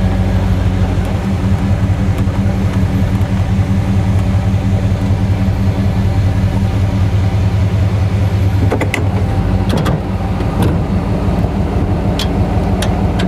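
A 1964 Chevrolet Impala's engine runs with a steady low rumble as the car rolls slowly onto gravel. A few sharp clicks come in over the last few seconds, and the sound cuts off abruptly at the very end.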